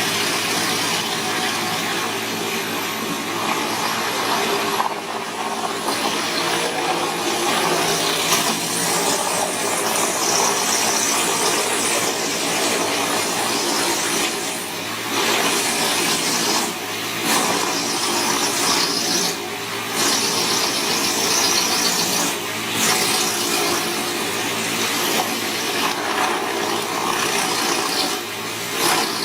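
Large wood chipper running, a loud steady mechanical noise broken by several short dips.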